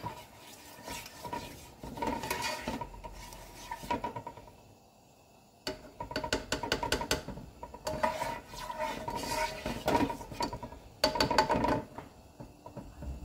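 Metal kitchen utensil scraping and clicking against a cooking pot in several short bursts, with a pause of about a second near the middle.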